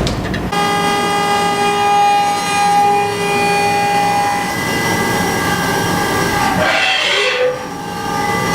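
CNC milling machine taking a facing cut across the top of a part: a steady whine made of several even tones, starting about half a second in. About two-thirds of the way through it breaks into a brief noisy rush, then the whine returns near the end.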